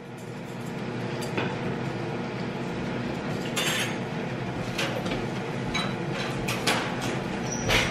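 Kitchenware clinking and knocking, about five separate clinks with the loudest near the end, over a steady fan hum that swells up in the first second and then holds.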